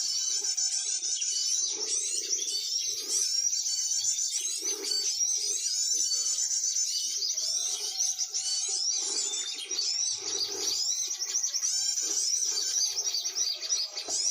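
Many small birds chirping and twittering densely at once, a continuous high-pitched chatter of quick rising and falling notes. Short lower notes recur underneath.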